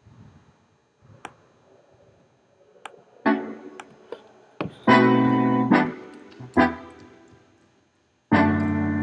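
Piano chords struck one at a time and left to ring, starting about a third of the way in, growing louder after the halfway mark, with a loud chord held near the end. Before the music begins there are a few faint light knocks.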